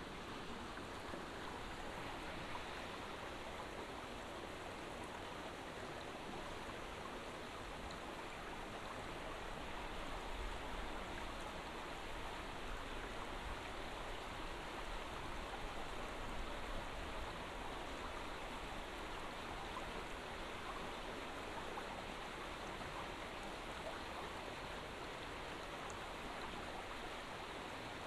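Running water from a stream, a steady rush that grows slightly louder about halfway through.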